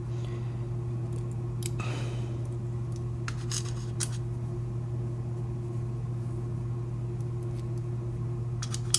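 Scattered light metallic clicks and taps as a key and small lock pins are handled, over a steady low hum. The sharpest click comes near the end.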